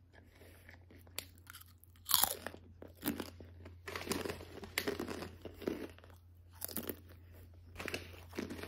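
Chips being crunched and chewed close to the microphone: a loud bite about two seconds in, then repeated irregular crunching.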